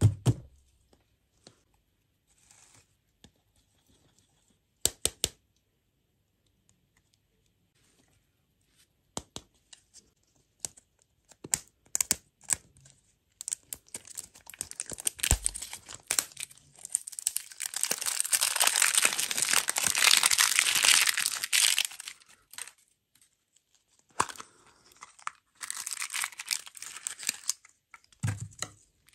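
Crinkly plastic wrapper being peeled and torn off a ball-shaped surprise-toy lollipop, after a few sharp taps and clicks. The crinkling and tearing starts about halfway through, is loudest a few seconds later, and comes back in a shorter bout near the end.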